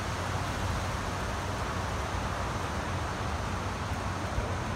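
Hurricane wind and rain: a steady rushing hiss with a low rumble underneath.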